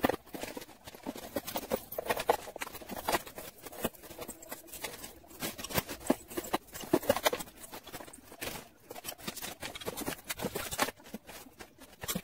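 Clear plastic bags rustling and crinkling while costume jewellery (necklaces, bangles and bracelets) is handled and dropped in, giving irregular small clinks and clatters throughout.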